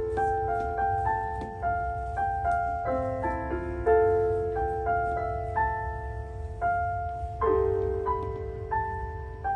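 Piano played solo: a slow melody of single notes and chords, each struck and left to ring and fade.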